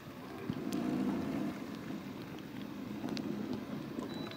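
Low, uneven rumble of wind on the microphone aboard a small boat, with a few faint clicks.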